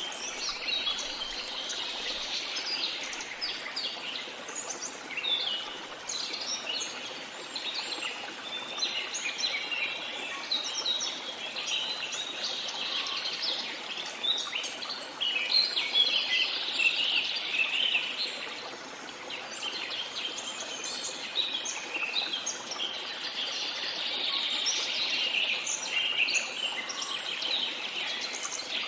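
Many songbirds singing and chirping at once, a dense overlapping chorus of short high chirps and trills, busiest about halfway through.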